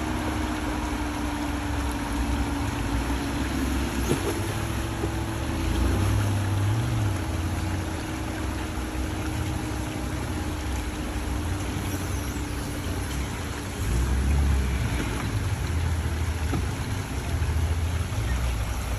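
An off-road vehicle's engine running steadily, with a low rumble that swells twice.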